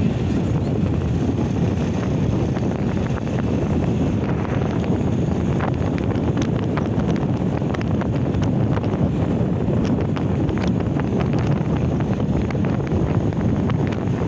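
Steady wind rumble buffeting the microphone of a moving motorcycle, with the ride's engine and road noise blended underneath and scattered light ticks.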